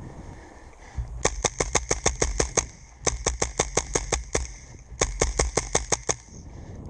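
Tippmann M4 V2 HPA airsoft rifle firing three rapid full-auto bursts of about eight shots a second, each burst a little over a second long, with short pauses between them.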